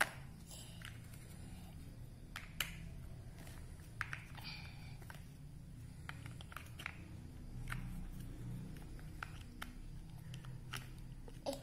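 Large plastic toy building bricks clicking and knocking as they are handled and pressed together, a few irregular sharp clicks every second or two.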